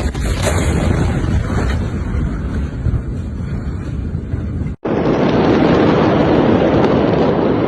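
Steady rushing noise of wind buffeting a phone microphone. The sound breaks off for an instant about five seconds in, then the same kind of rushing noise carries on.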